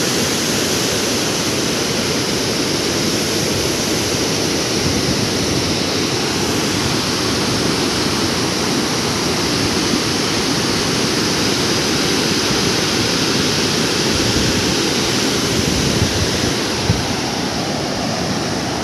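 Floodwater released through the open gates of a dam spillway, rushing down the concrete chute: a loud, steady rush of water.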